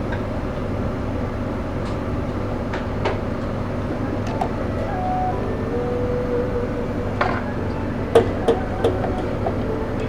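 Steady mechanical drone of kitchen machinery with a low hum. A few sharp metallic clicks and knocks come about eight to nine seconds in.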